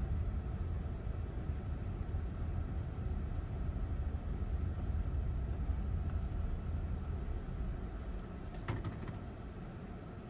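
Low rumble of a car's engine and tyres as it drives slowly, easing off near the end as the car slows. There is a single sharp click near the end.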